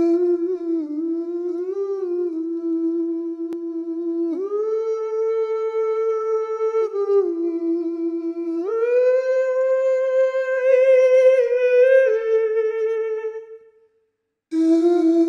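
Opening soundtrack: a single humming, wavering melody line of long held notes. It steps up in pitch about four seconds in, drops back, rises higher again around the middle, then fades out to a brief silence and starts again near the end.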